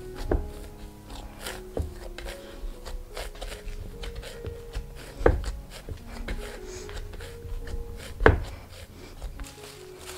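Hands kneading soft steamed-bun dough in a wooden bowl: rubbing and pressing, with a few thumps as the dough is pushed against the bowl, the loudest about five and eight seconds in. Soft background music plays underneath.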